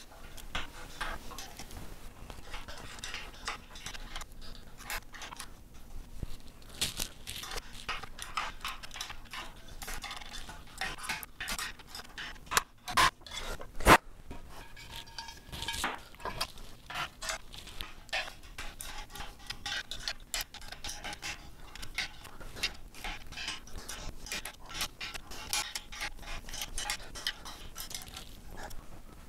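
Quick metallic clicking and clinking of a hex key turning bolts in an aluminium 80/20 extrusion and its joining plates, sped up. A sharp clack stands out about halfway through.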